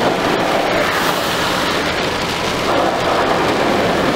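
Heavy rain falling on a car's roof and windscreen, heard from inside the moving car, mixed with the hiss of tyres on a wet road. Steady and loud throughout.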